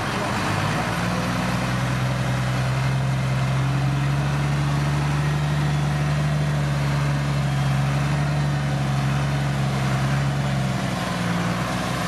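Dump truck's diesel engine revved up and held at a steady raised speed to drive the hydraulic hoist as the tipper bed lifts to dump its load. The engine drops back toward idle near the end.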